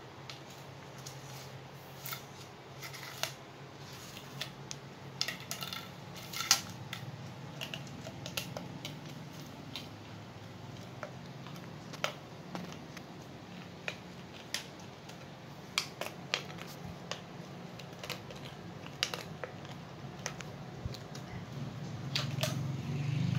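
A puppy playing on a tiled floor: scattered sharp clicks and taps over a steady low hum, which grows louder near the end.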